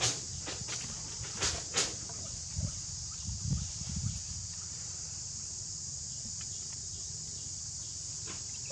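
A steady, high-pitched insect chorus, with a few sharp clicks and soft low thuds in the first four seconds.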